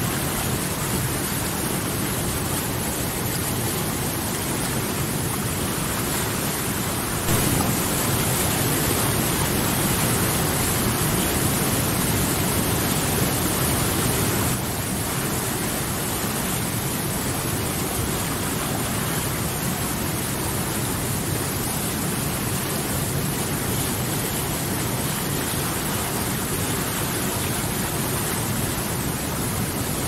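Whitewater rapids of a mountain stream: a steady rush of water churning over boulders. It grows slightly louder for about seven seconds, starting and stopping suddenly, from about a quarter of the way in.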